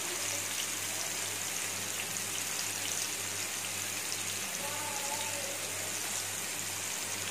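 Marinated chicken tikka pieces frying in shallow oil in a pan over a medium gas flame: a steady sizzling hiss with light crackles.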